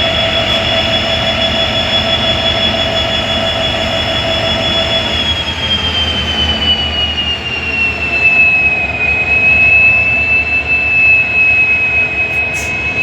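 Indian Railways locomotive standing with a loud, steady high-pitched whine over a low hum. The whine glides down in pitch about five to nine seconds in and then holds, while a lower tone fades and the low rumble grows.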